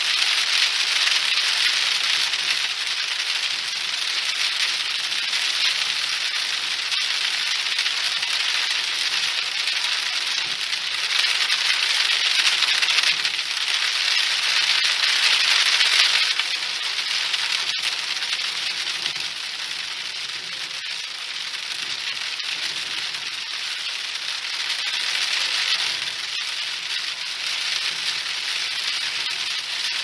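Rain falling on a car's roof and windshield, heard from inside the moving car as a dense, steady patter. It swells louder for a few seconds about a third of the way through, then eases off.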